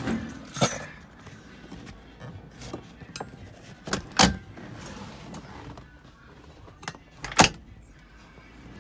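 Three sharp clunks, the last the loudest, with small clicks and rustling between them, from the 1968 Cadillac convertible's top being handled at the windshield header as it is readied to be lowered; the power-top motor is not yet running.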